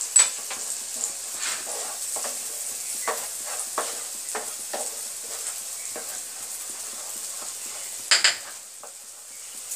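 A wooden spatula stirs and scrapes green pea paste frying in oil in a kadai, over a light steady sizzle, with irregular scrape strokes. A louder clatter comes about eight seconds in.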